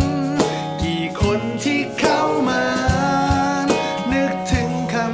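Acoustic pop song played live: two acoustic guitars strumming under a male lead vocal, with a low thump marking a steady beat about two to three times a second.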